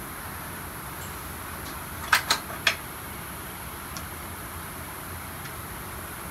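Steady background hiss, broken by three short sharp clicks or knocks in quick succession about two seconds in.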